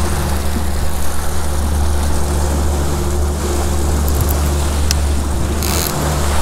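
Outboard motor running steadily with the boat under way, water rushing in the wake. A brief hiss near the end.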